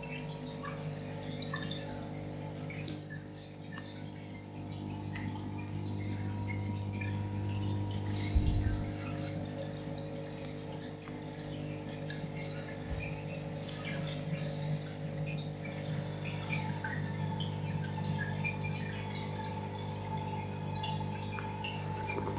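Aquarium pump humming steadily, with water trickling and bubbling and scattered small ticks, and one dull bump about eight seconds in.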